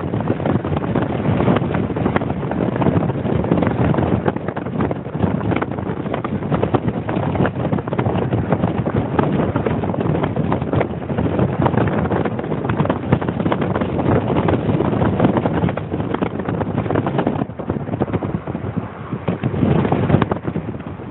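Wind buffeting the microphone on a moving vehicle, a loud continuous rough rush over the vehicle's road noise, easing briefly near the end.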